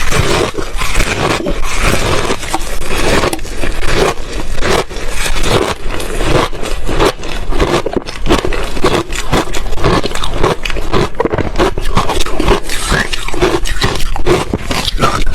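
Ice being bitten and chewed: loud, rapid, irregular crunching that goes on without a break.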